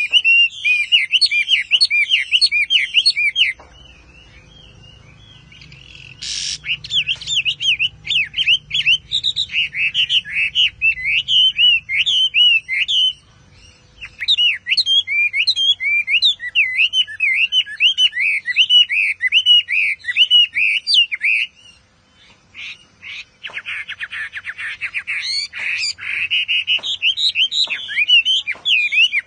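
Caged Chinese hwamei (Garrulax canorus) in full song: a fast, loud run of varied, sweeping whistled phrases, broken by a few pauses of a second or two.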